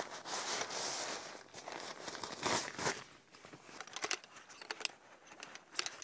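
Thin nylon stuff sack of a Helinox Chair Zero camp chair rustling and crinkling as the folded chair is pulled out of it, with light clicks and taps from the aluminium pole frame. The rustling is busiest in the first second and again around the middle, then thins to scattered clicks.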